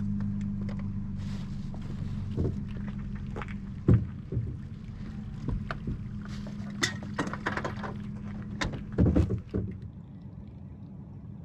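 A steady low engine hum with scattered knocks and clicks over it. The hum cuts off about nine and a half seconds in.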